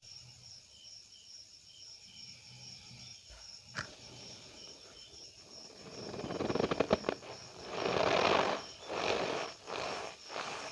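Cornstarch powder being squeezed and pressed, giving crunchy squeaks and clicks. The crunching starts about six seconds in and comes in several swells.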